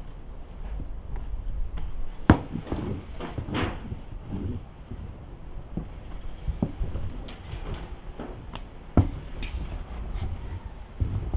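Wooden rolling pin rolling out dough on a wooden board, with scattered sharp knocks of the pin against the board, the loudest about two seconds in and another near the end.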